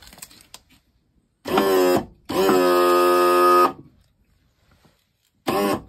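Honda 150 outboard's electric power trim and tilt motor running in three bursts as the motor is lowered to level: a short run about a second and a half in, a longer steady run of about a second and a half, and a brief run near the end. Each burst is a steady pitched hum that stops suddenly.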